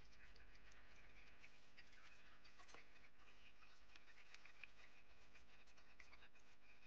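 Near silence with faint scratching and small clicks as fingers handle a toothed timing belt against a wooden pulley rim.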